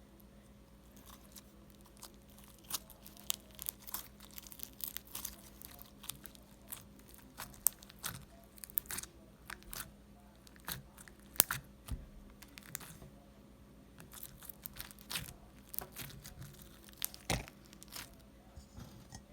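Crunchy slime, with fruit chips and small white beads mixed in, being squeezed and worked by hand: irregular sharp crackles and pops, with a short lull about two thirds of the way through.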